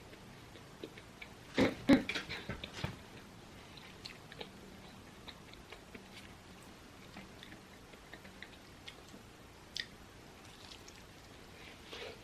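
Close-miked eating sounds: soft chewing and small wet clicks, with a short cluster of louder knocks and clatter about two seconds in.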